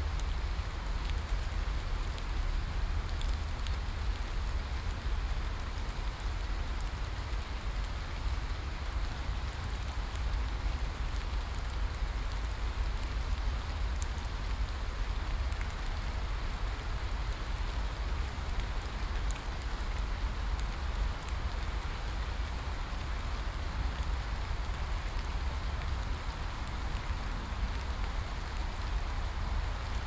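Heavy rain falling steadily through forest foliage: a dense, even hiss with a deep rumble underneath and scattered drop ticks.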